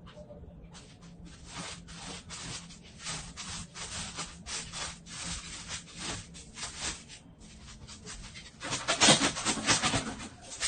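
Rapid, repeated scratching and rubbing strokes, loudest about nine seconds in.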